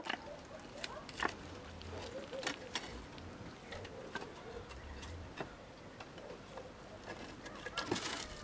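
Irregular rustling with light clicks and knocks as a dog and a kitten scramble and play over dry grass and a wooden crate. A louder cluster of clicks comes near the end.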